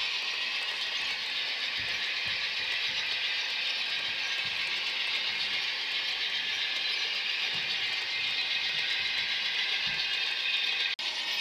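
N scale model passenger trains running on the track: a steady, high whirring rattle of small metal wheels on the rails and the locomotive motors. The sound breaks off for an instant near the end.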